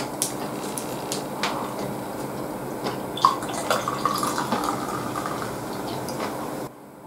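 A few light clicks and knocks, then beer-style drink poured from a can into a glass for about two seconds, running and foaming. The sound drops away abruptly near the end.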